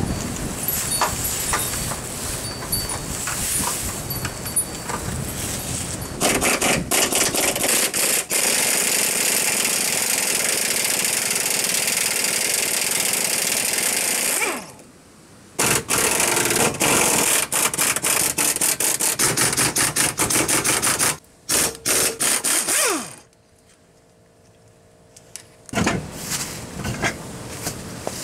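A power tool hammering rapidly in bursts: a long run of about eight seconds, then a string of short bursts, before it stops near the end.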